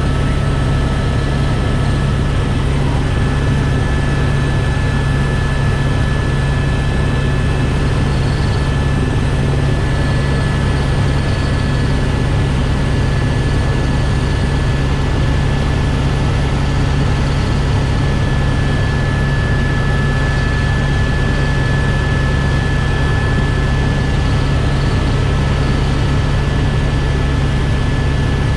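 Helicopter running steadily: a loud, unchanging rotor and engine drone with a deep rumble underneath and a thin steady high whine on top.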